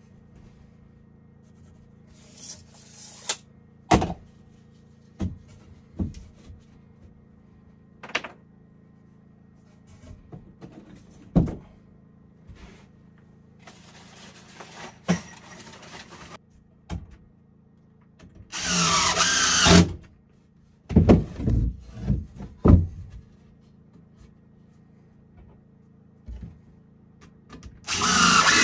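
Carpentry work: scattered knocks and thuds of wood and tools being handled, with several short runs of a power tool, likely a drill, the loudest about two-thirds of the way through and another near the end.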